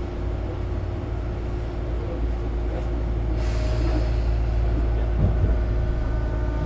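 Inside a Tobu 9000-series electric train car: a steady low hum with faint constant tones from the car's equipment. A short air hiss about three and a half seconds in, typical of the brakes being released before starting.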